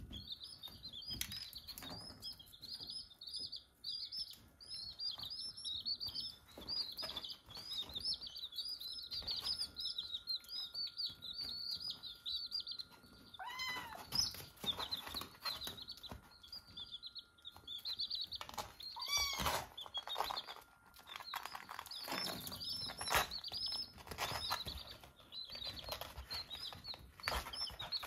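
Baby chicks peeping continuously, a stream of many short, high, overlapping peeps. A kitten meows twice partway through, lower and longer than the peeps, among light taps and scuffles.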